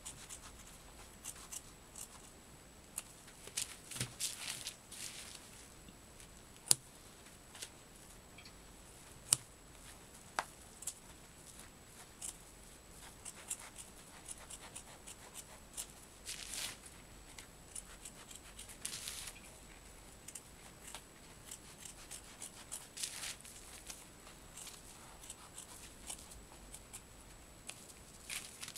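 Scissors snipping through thick wool felt, cutting the foot opening of a felted slipper: short separate cuts with pauses between, and a few sharp clicks among them.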